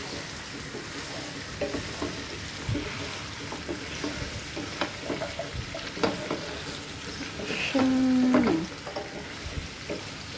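Boiled chicken feet frying and sizzling in a nonstick pan while being stirred, with scattered light knocks of the utensil against the pan. About eight seconds in, a brief pitched tone lasting under a second is the loudest sound.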